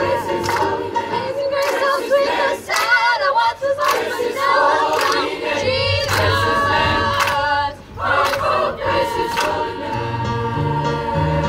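Large choir singing a gospel song in harmony, many voices together. A keyboard adds sustained low bass notes from about ten seconds in.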